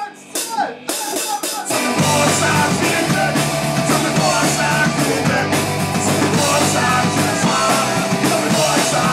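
Punk rock band playing: after a few sharp separate hits, electric guitar, bass guitar and drum kit come in together about two seconds in and carry on loud and driving.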